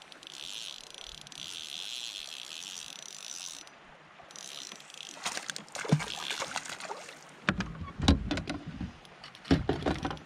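A spinning reel whirring steadily as line is cranked in, stopping briefly and starting again. Then a run of knocks and hollow clattering thumps as gear is handled against the plastic kayak hull, the loudest sounds here.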